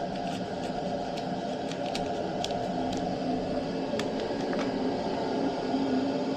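Burnham Alpine condensing gas boiler running at high fire: a steady rush from the combustion blower and burner, with a few faint clicks over it.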